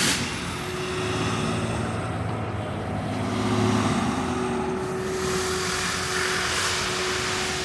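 A fire engine's engine droning steadily as the truck drives off, over the sound of road traffic.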